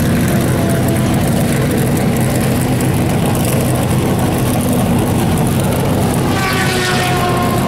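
Steady loud drone of racing engines running on the circuit, with one engine rising in pitch about six seconds in as it accelerates.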